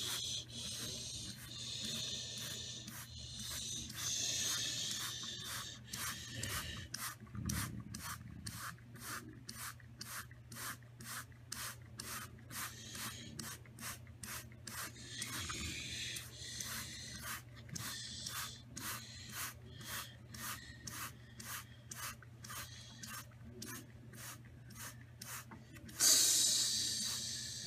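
Home-built toy-block model of a Ryko soft-touch car wash running, with a steady low hum and hiss. Through the middle there is a regular rubbing click about two to three times a second, and a loud burst of hiss near the end.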